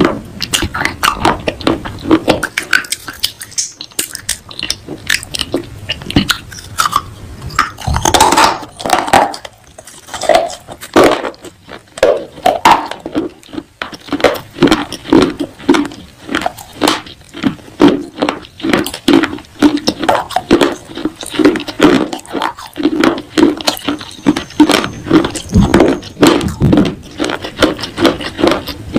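Close-up crunching and chewing of baked clay pot pieces: crisp, gritty crunches, a louder bite about a third of the way in, then steady chewing at roughly two to three chews a second.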